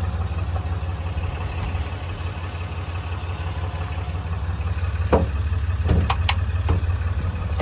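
Engine idling steadily, with a few sharp clicks and knocks about five to seven seconds in.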